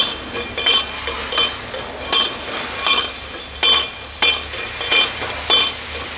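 A Toyota SW4's broken rear shock absorber, rocked back and forth by hand, giving a sharp metallic clink about every 0.7 s, some nine times. This is the rear-suspension knock that the owner had taken for keys rattling.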